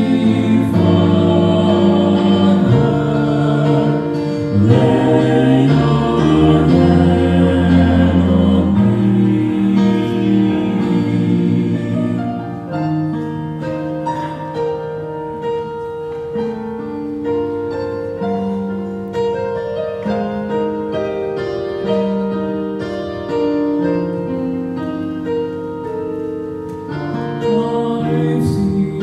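Men's vocal quartet singing a gospel song in close harmony, the voices ending about twelve seconds in; the instrumental accompaniment then plays on alone, softer, to the end.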